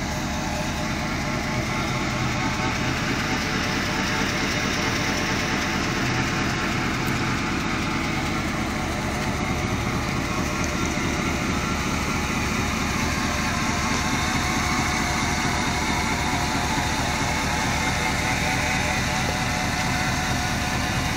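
C1500 pickup truck's engine idling steadily.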